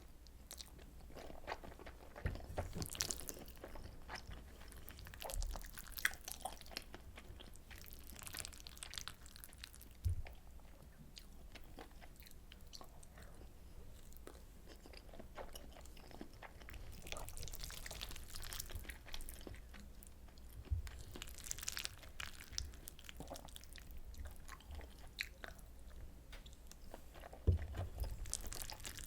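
Close-miked chewing and mouth sounds of a person eating soy sauce butter egg rice: a run of small clicks and smacks, thicker in clusters every few seconds, with a few soft low thumps.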